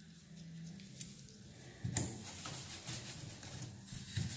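Plastic push-in retainer clips on a hood insulation pad being worked with a clip-removal tool. There are faint handling and scraping sounds, a few small clicks, and one sharper plastic click about two seconds in.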